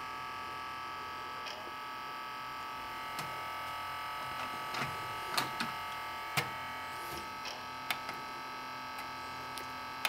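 Steady grinding buzz from the jammed CD changer mechanism of a Sony MHC-VX7 mini hi-fi, running on without a break, with a few faint clicks over the top. The disc tray is stuck, and the owner suspects the drive belt inside has rotted.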